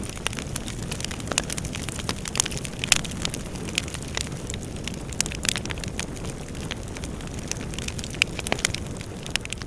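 Fireplace fire burning: a steady low rumble with frequent sharp crackles and pops from the burning wood, a few louder pops standing out.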